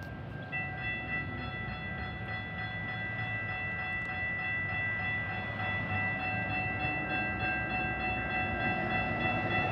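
Metra train approaching with its horn sounding a steady multi-note chord, held almost throughout, over a low rumble that slowly grows louder.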